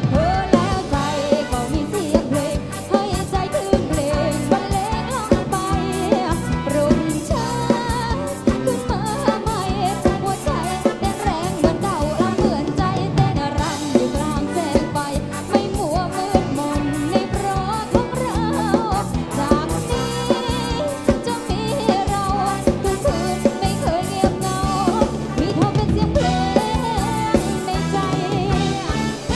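Live Thai pop band playing a song: a lead voice singing over a drum kit keeping a steady beat.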